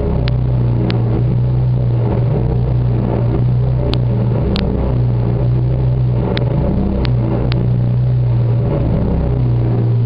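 Rubber super-ball head of a Bongers massage tool dragged across a drum head, giving a loud, sustained low groan with a steady pitch that wavers briefly a few times. Scattered sharp crackles from the microphone run over it.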